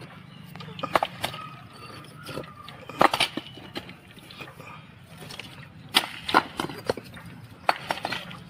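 Fired clay bricks knocking and clinking against each other as they are handled, in short clusters a few seconds apart, over a faint steady low hum.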